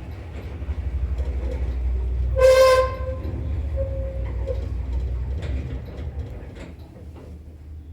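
Passenger elevator car running in its shaft with a steady low rumble, and one loud, high squeal about two and a half seconds in; a fainter squeak and a few clicks follow as the sound dies down. The title calls the lift's squeaking strong.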